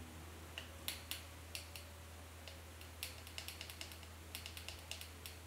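Light, irregular clicks and taps of a paintbrush working paint in the wells of a clear plastic watercolor palette, over a low steady hum.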